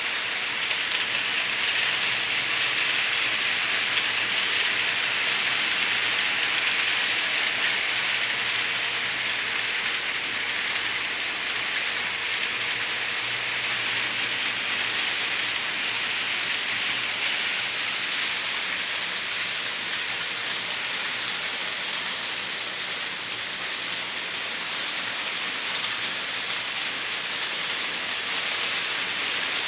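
Model trains running on the layout's track: a steady hissing rattle of small metal wheels on the rails and the locomotives' motors, a little louder in the first few seconds.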